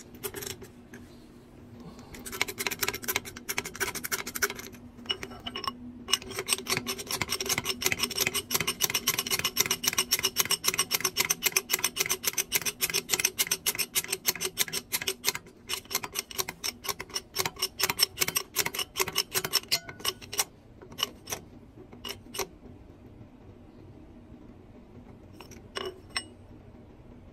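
Hydraulic bottle jack of a heated mold press being hand-pumped to clamp the mold: fast, rhythmic clicking strokes, several a second, that stop about twenty seconds in, followed by a few single clicks. A low steady hum runs underneath.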